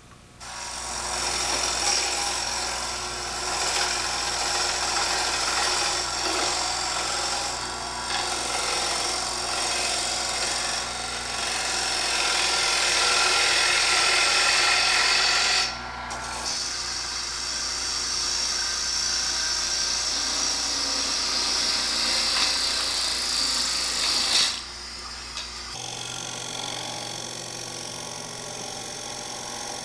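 Bowl gouge cutting the outside of a cherry bowl blank spinning on a Carbatec mini lathe: a steady hiss of the cut over the lathe motor's hum. It breaks off briefly about halfway through and is quieter for the last few seconds.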